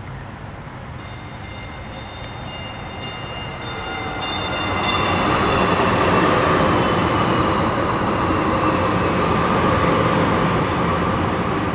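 Denver RTD light rail train passing close by: a bell dings rapidly, about two to three strikes a second, for the first few seconds. Then the rumble of the cars and a steady high whine swell up and hold as the train goes by.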